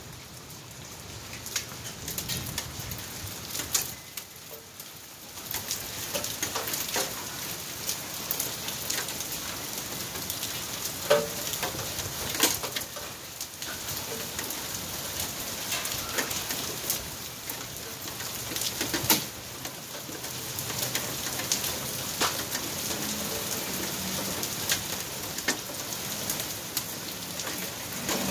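Hail and rain falling on a concrete driveway: a dense patter with many sharp clicks of hailstones striking, briefly easing about four seconds in.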